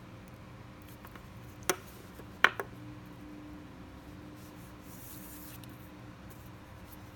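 Small cutting nippers snipping the tag end of monofilament fishing line at a hook's knot: two sharp clicks a little under a second apart, the second louder with a quicker, fainter click right after it.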